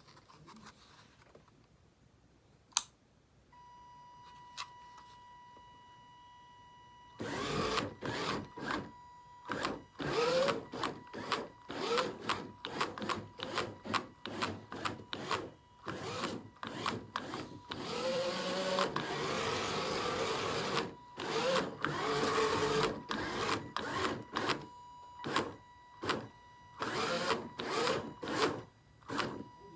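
Small electric motors of a homemade RC car whirring in many short bursts, starting and stopping as it is driven, with one longer run partway through. A steady high-pitched whine sounds underneath, after a single click early on.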